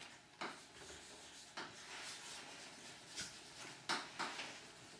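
Chalk writing on a blackboard: faint, irregular scratching strokes and light taps of the chalk as a word is written.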